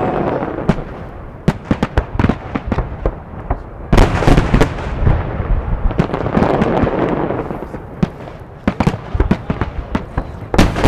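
Fireworks salute: many sharp bangs of bursting shells in irregular clusters, with a noisy haze between them. The densest, loudest volley comes about four seconds in, and another starts near the end.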